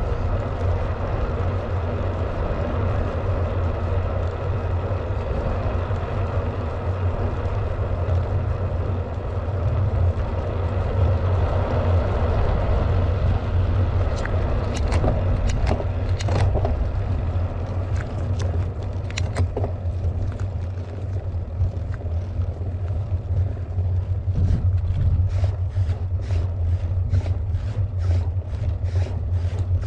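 Wind rumbling on a cycling action camera's microphone as the bike rolls along a paved road, with tyre noise underneath. A few sharp clicks come partway through, and a regular run of ticks, about two or three a second, comes near the end.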